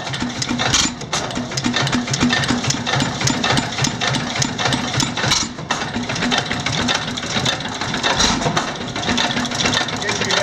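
1912 Fairbanks-Morse 15 horsepower hit-and-miss gas engine running at speed, with a steady, rapid clatter of clicks and knocks from its moving parts. As a hit-and-miss engine, it fires only when its governor calls for power and coasts on its heavy flywheels in between.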